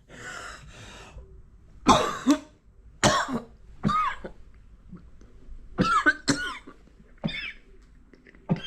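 A man coughing repeatedly, one short cough every second or so, some in pairs, with a breathy throat-clearing near the start. It is a cough that has been getting worse.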